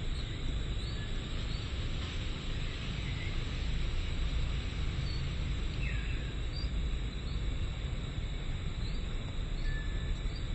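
Steady chorus of crickets or similar insects, a continuous high shrill with a few faint chirps over it, above a low steady rumble.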